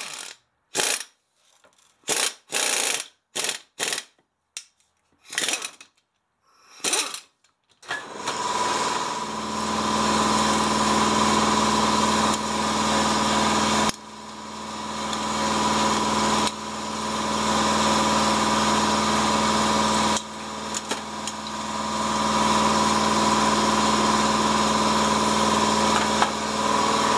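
A handheld pneumatic air hammer on a shop air line, fired in about eight short bursts against a driveshaft's double cardan centering yoke over the first seven seconds. About eight seconds in, a steady motor hum with a constant tone sets in and runs on, broken by a few sharp knocks.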